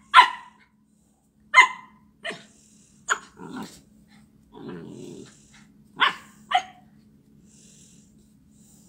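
Puppy barking: about six short, sharp barks in the first seven seconds, with low growling between them about halfway through.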